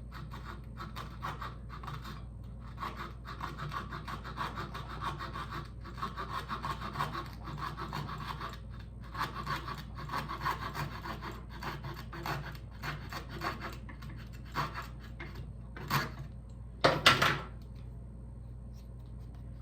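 Saw cutting a thin wooden door shim by hand in quick back-and-forth strokes, with a few short pauses, then a couple of louder knocks near the end.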